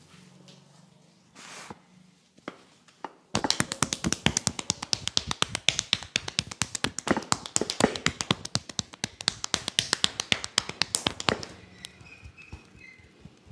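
Hand-percussion massage strokes: a fast, steady run of sharp slaps and taps of the barber's hands on the body, several a second. It starts about three seconds in and lasts about eight seconds, after a few single taps.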